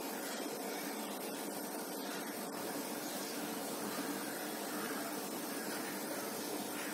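A steady, even hiss of background noise with no separate events.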